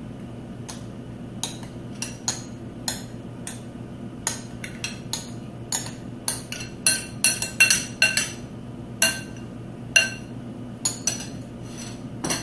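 A spoon clinking and scraping against a salad bowl in irregular, briefly ringing knocks, thickest from about six to eight seconds in, as dressing is spooned into a pasta salad.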